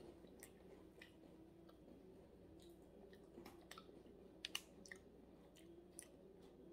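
Faint chewing of a thin mint chocolate cookie: soft mouth clicks and crunches scattered through, with two sharper ones about halfway through, over a faint steady hum.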